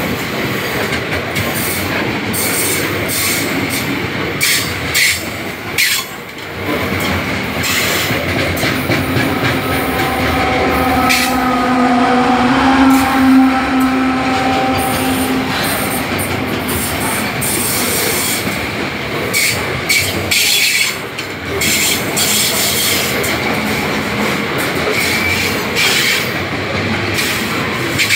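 Empty freight train of hopper cars rolling past close by: a steady rumble of steel wheels on rail, with scattered clacks as the wheels cross rail joints. About halfway through, a mid-train diesel-electric locomotive goes by, and its engine adds a steady hum that is the loudest part.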